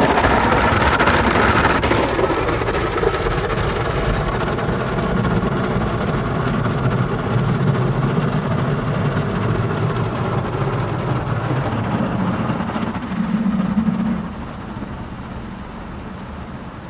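WashTec SoftLine 2 tunnel car wash brushes scrubbing over the car while water sprays onto it, heard from inside the car as a steady rumbling swish. The noise drops noticeably about fourteen seconds in.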